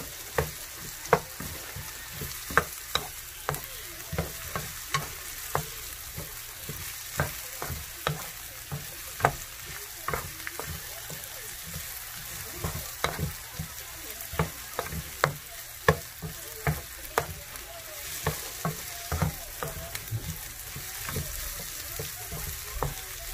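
Sliced onions and garlic sizzling in canola oil in a nonstick frying pan, stirred with a wooden spatula that knocks and scrapes against the pan in frequent, irregular strokes over a steady frying hiss.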